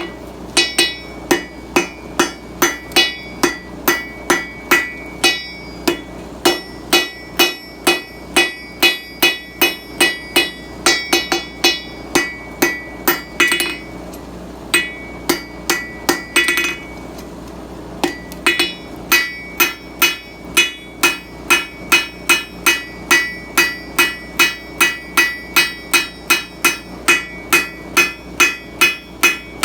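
Blacksmith's hand hammer striking steel bar stock on an anvil, about two ringing blows a second, with two brief pauses.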